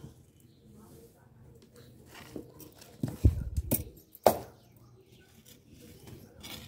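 Metal fire tongs knocking and clicking as dried cow-dung cakes are gripped and moved beside a clay stove. There is a short cluster of knocks around the middle and one sharp click just after.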